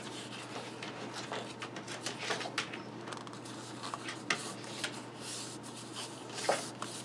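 Cardstock being handled: an embossed card panel rubbed and slid against a card base, giving a run of short, irregular dry scrapes and rustles.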